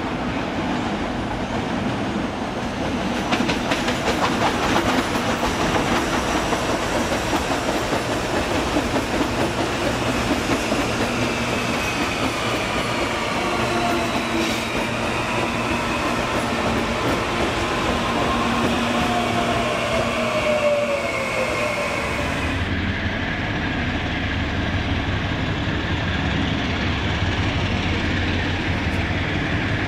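A CPTM electric multiple-unit commuter train running past close by, wheels clattering over the rail joints, with a whine that glides in pitch as it goes. About three quarters of the way in the sound changes abruptly to the steady low engine hum of an MRS diesel freight locomotive approaching.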